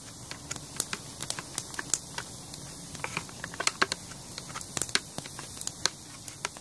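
A wooden stick used as a pestle pounding dried acorn meat in an aluminium mess tin, grinding it into meal: irregular knocks and crunches, several a second, with a campfire crackling.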